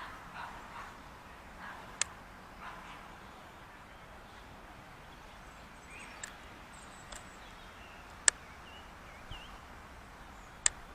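Faint outdoor background with several short, soft animal calls in the first three seconds and a few thin chirps later, broken by three sharp clicks about two, eight and ten and a half seconds in.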